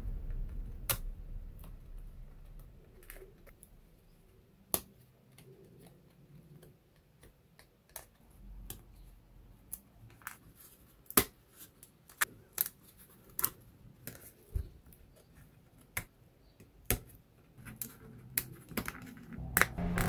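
Sharp, separate clicks and snaps of thin, light laser-cut wooden kit pieces being pressed out of their sheets by hand. A few come in the first half, and they come more often in the second half. Background music fades out over the first few seconds.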